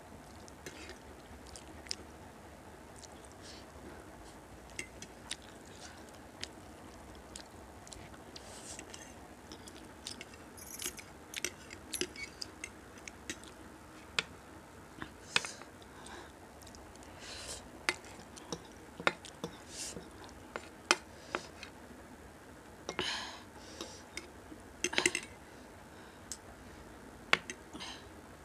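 A person chewing and eating noodles, with many small wet clicks and smacks of the mouth scattered throughout, busier in the second half, and a couple of longer, louder mouth noises near the end.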